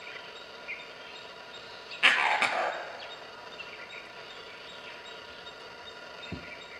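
Gray langur monkey giving its harsh alarm bark, two quick calls about two seconds in, the warning a langur gives on sighting a predator such as a leopard. Faint bird chirps in the background.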